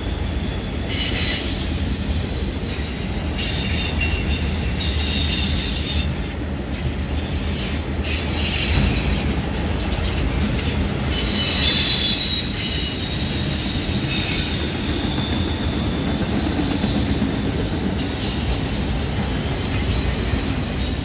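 Freight train's autorack cars rolling past on a curve: a steady rumble of steel wheels on rail, with high-pitched wheel squeal from the curve coming and going.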